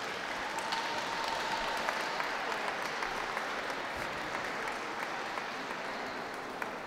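Audience applauding steadily, dying down a little near the end.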